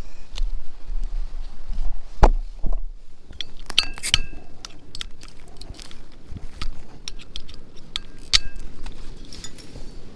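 Glass beer bottle clinking and knocking while its cap is worked at: a run of sharp clicks, a few of them ringing briefly like glass, over a low wind rumble on the microphone.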